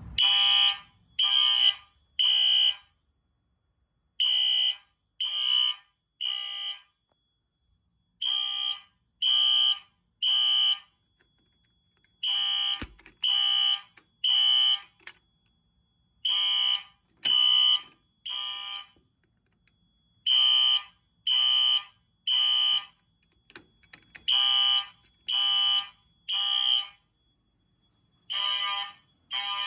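A fire alarm horn sounds the temporal-three evacuation pattern: groups of three short, identical blasts, repeating about every four seconds, the signal of a fire alarm system in alarm. A faint steady high tone continues between the groups.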